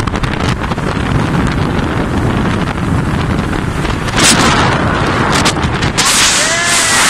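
Wind buffeting a phone microphone on a motorboat running fast over open sea, a loud rough rushing throughout. It brightens into a harsher hiss briefly about four seconds in and again from about six seconds in, where a short yell rides over it.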